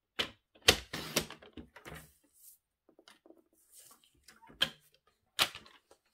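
Tabletop paper trimmer cutting card stock: a series of sharp clicks and knocks as the card is set against the trimmer and the blade is worked, with a couple of short hissing swishes of the blade and paper in between.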